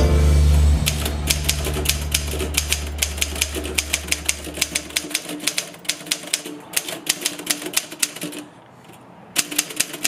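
Typing on an old full-size manual typewriter: sharp key strikes at about four a second, with a short pause near the end. A held low note from closing music fades out in the first half.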